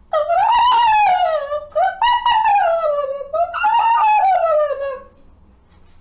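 A child's voice imitating a laughing hyena's call: three long calls in a row, each rising and then falling in pitch.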